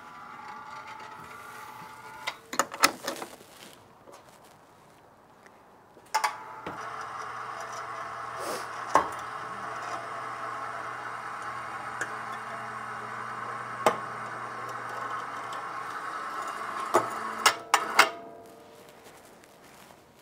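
Electric hoist motor winching up a wooden ramp loaded with a rooftop tent. A short run ends about two seconds in and is followed by a few knocks. After a pause the motor runs steadily for about eleven seconds, then stops with a few clicks and knocks.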